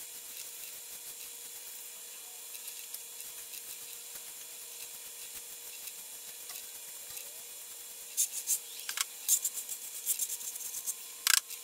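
Straw broom sweeping small hard debris across a concrete floor, a soft steady brushing. From about eight seconds in come louder scraping and rattling clicks as the debris is swept into a dustpan.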